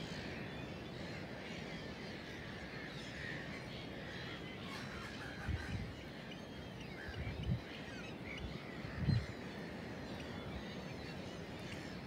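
A large flock of gulls calling, many short overlapping calls at once. Three brief low thumps come in the second half.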